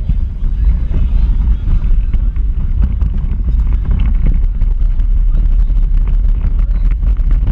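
Steady low rumble and wind buffeting heard from on board a small electric Power Racing Series car driving on asphalt, with many small clicks and rattles from the car.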